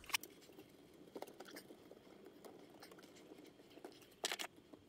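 Faint small clicks and rustles of fingers working a cable connector loose on a VCR circuit board, with a sharper pair of clicks about four seconds in.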